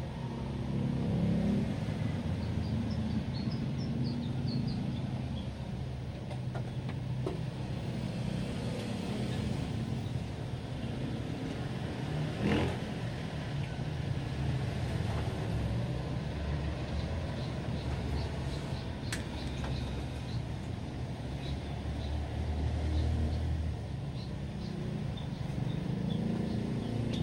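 Isuzu 4JA1 four-cylinder diesel engine running, its speed rising and falling a little at times, with one sharp knock about halfway through.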